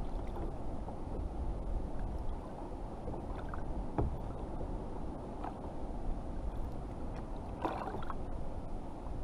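Choppy sea water sloshing against a kayak hull, with a steady low rumble and a couple of faint knocks, about four seconds in and again near eight seconds.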